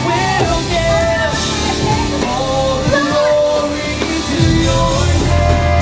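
Live rock band playing a song: a lead voice singing over guitars, bass and drums.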